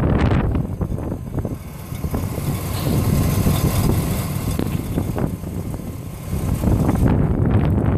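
2004 Cadillac Escalade's 6.0 L Vortec V8 idling warm with a clatter from the front accessory belt drive, caused by a worn idler pulley and belt tensioner.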